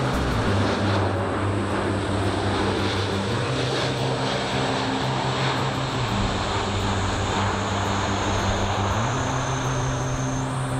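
Jet engine noise from a Boeing 747 freighter on final approach to land: a steady, broad rushing sound with no sudden events.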